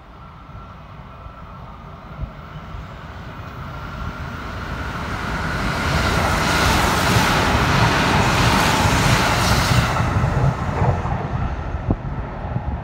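Kintetsu 23000 series Ise-Shima Liner limited-express electric train passing through the station without stopping. The rumble and rush of its wheels on the rails build as it approaches, are loudest from about six to ten seconds in as it runs past, then ease off.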